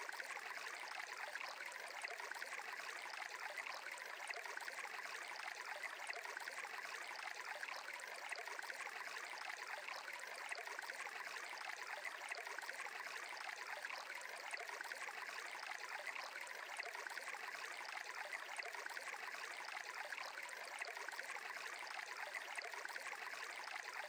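Faint, steady background ambience of rushing water like a flowing stream, even and unbroken with no tune or beat.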